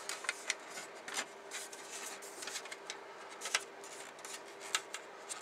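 Grey injection-moulded plastic model-kit parts being handled and dry-fitted together, rubbing and clicking against each other in scattered light clicks and rustles.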